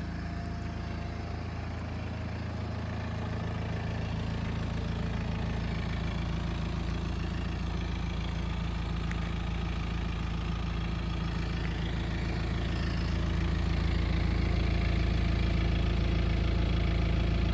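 BMW N47 two-litre four-cylinder turbodiesel in a 318d F31 idling steadily, with a noise at idle that the owner calls strange. It grows gradually louder until about three-quarters of the way through, then holds steady.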